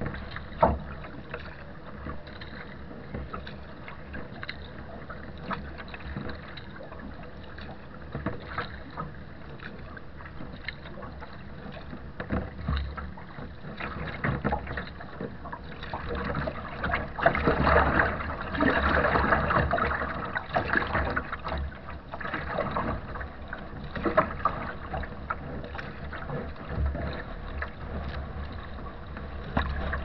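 Strong wind buffeting the microphone on a Nordkapp HM sea kayak's foredeck, over choppy water slapping and splashing against the hull. The water noise rises for several seconds about halfway through as the boat heels into the waves.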